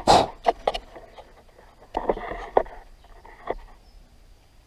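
Freshly drilled steel plates being handled: a handful of metal knocks and scrapes, the loudest right at the start and another cluster about two seconds in.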